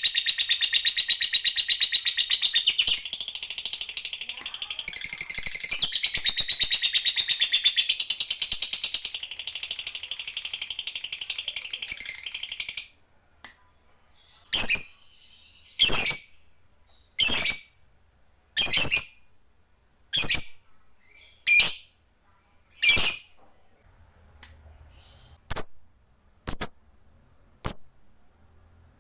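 Lovebird giving a long, fast, unbroken chattering trill, the 'ngekek panjang' that fanciers prize, for about thirteen seconds. It then stops and gives single sharp chirps, about one every second and a half.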